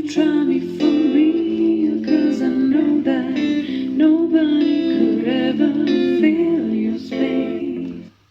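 A song with guitar and singing played back through a Sony BSP60 Bluetooth speaker, cutting off sharply near the end.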